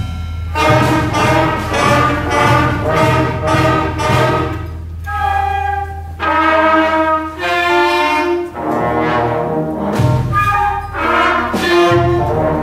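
Student concert band playing, brass and woodwinds together, mostly in short rhythmic phrases with a few longer held chords in the middle.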